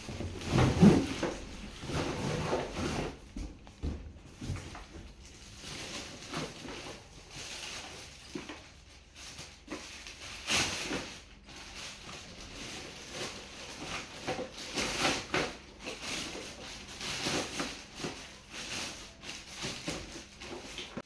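A big gift being unwrapped by hand: wrapping paper and a cardboard box rustling, crackling and tearing, with occasional knocks of the box, louder near the start and about ten seconds in.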